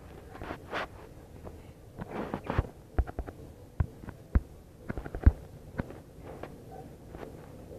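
Irregular taps and knocks of craft materials being handled, with a few short rustles; the knocks cluster in the middle, the loudest about five seconds in.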